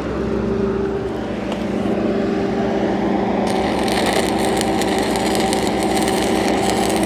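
Stick-welding arc on steel pipe struck about three and a half seconds in, giving a steady crackling sizzle from a cellulosic 6010/8010-type rod running downhill. Under it is a steady engine hum.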